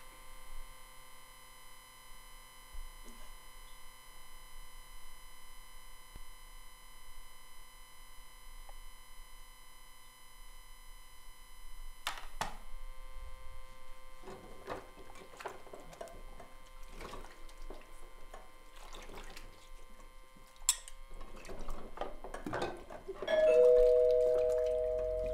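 Light knocks and clatter of kitchen work at a counter, then near the end a two-tone ding-dong doorbell rings, a higher note followed by a lower one, ringing out slowly.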